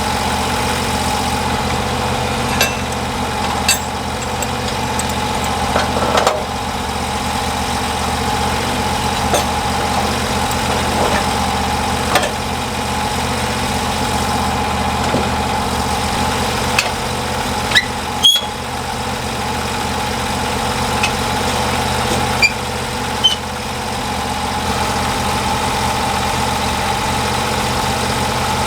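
Sawmill engine running steadily, with occasional short sharp clicks and squeaks over it.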